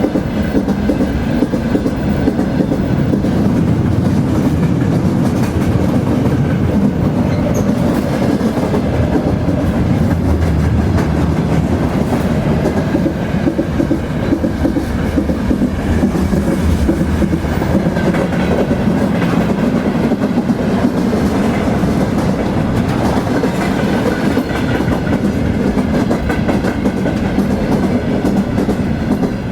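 Train rolling along the track: a steady low rumble with a constant run of clicks from the wheels on the rails.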